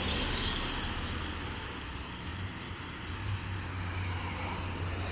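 Street traffic: a motor vehicle's engine running close by over a steady wash of road noise.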